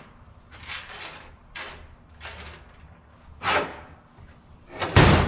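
Metal transmission parts being handled on a workbench: several short scrapes and a louder sliding scrape, then a heavy metal clunk near the end as a part is set down or dropped.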